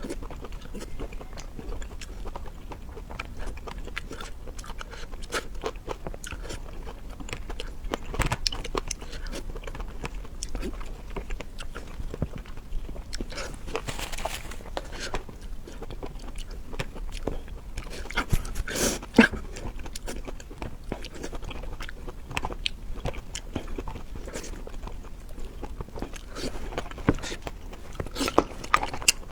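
Close-up chewing and biting of crunchy food: a steady run of irregular crunches and crackles, with a few louder bites now and then.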